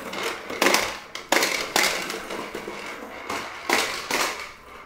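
A run of about seven irregular clattering knocks of hard toys being knocked about or dropped, trailing off near the end.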